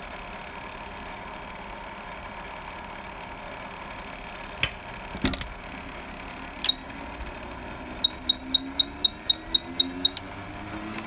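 Steady hum of electronics bench equipment with a few sharp clicks, then a quick run of about nine short, high beeps, about four a second, near the end.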